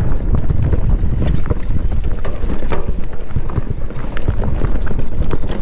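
Heavy wind buffeting the microphone, with many short clicks and rattles throughout.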